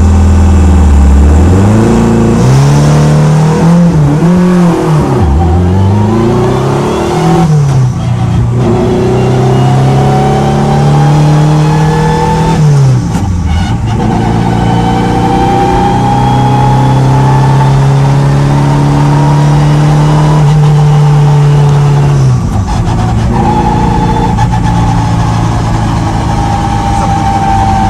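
Untuned Honda-swapped Toyota MR2 engine revving and pulling through launch practice. Its pitch climbs and holds steady for several seconds at a time, then falls sharply about 7, 13 and 22 seconds in, with a thin whine rising alongside. Heard from inside the car.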